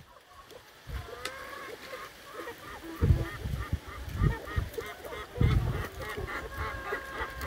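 Backyard chickens and turkeys calling: a long run of short, quickly repeated calls, with a few dull thumps.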